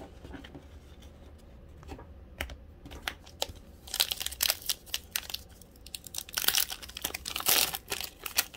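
A foil Upper Deck hockey-card pack being torn open and crinkled by hand: a run of sharp, crackling rips and crinkles starting about four seconds in, after a few faint taps.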